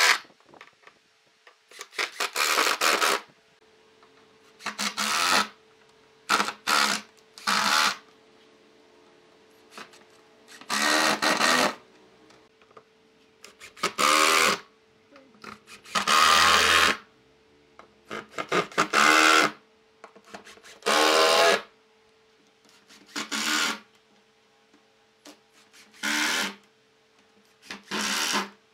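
Makita 18V cordless impact driver driving wood screws into pine slats, in about a dozen short bursts of a second or less with pauses between as each screw is set.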